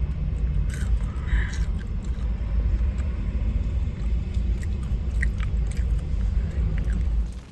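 Chewing and biting, with faint mouth clicks, over a steady low rumble that cuts off suddenly near the end.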